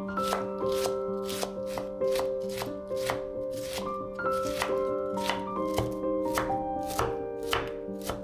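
Chef's knife shredding cabbage on a bamboo cutting board, the blade knocking the board in a steady rhythm of about two strokes a second, over background music with sustained tones.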